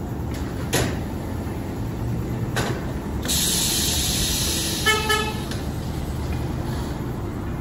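A short car-horn toot about five seconds in, over a steady low rumble of vehicles and shop noise. There are two sharp knocks before it and a hiss lasting about a second.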